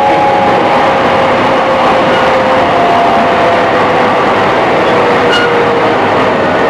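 Running noise inside a JR East E531 series electric train: a steady rumble of wheels on rail with a traction-motor whine that falls slowly in pitch as the train slows.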